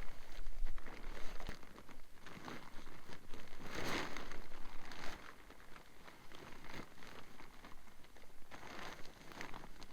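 Crinkling and rustling of a large pop-up tent's synthetic fabric being handled and folded, busiest in the first half with a louder rustle about four seconds in, then lighter handling.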